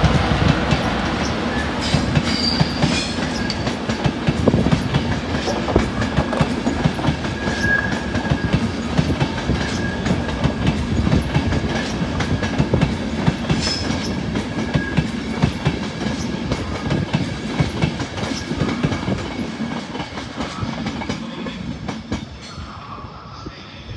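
A train running past on the tracks, its wheels clicking over the rail joints, the sound fading away over the last few seconds.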